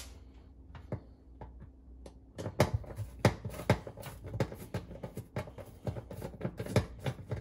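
Phillips screwdriver working the screws out of the bake element's mounting bracket on the back wall of an electric oven: a few faint clicks, then from a couple of seconds in, a run of irregular sharp metal clicks, a few a second.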